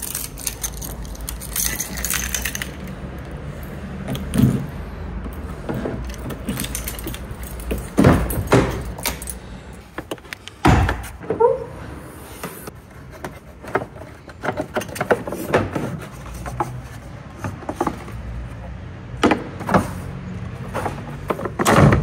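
Car keys jangling in the door lock of a VW Polo 9N as it is unlocked by hand, then a series of knocks and clunks from the car's door and bonnet being worked.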